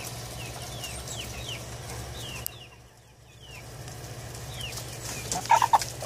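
Backyard hens clucking, with a scatter of short falling calls as they go after a cicada thrown into their pen. The calls grow louder near the end, over a steady low hum.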